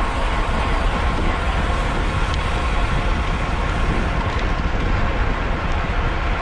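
Steady rush of wind and road rumble on the microphone of a camera carried by a cyclist riding at race speed, with no break or change.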